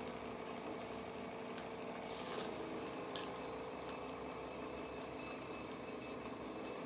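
Small electric cotton candy machine running: its motor spins the heated sugar head with a steady hum.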